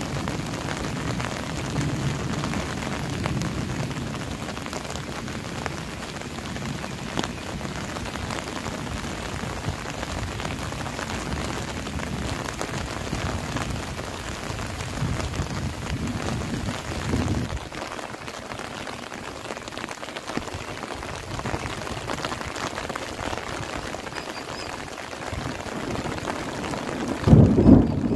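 Steady rain falling, with a low rolling rumble of thunder that dies away about two-thirds of the way through. Near the end a louder thunderclap starts to boom.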